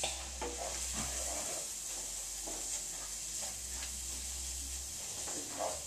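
Breadcrumbs and shrimp sizzling in oil and butter in a pan, with a wooden spoon scraping now and then as they are stirred.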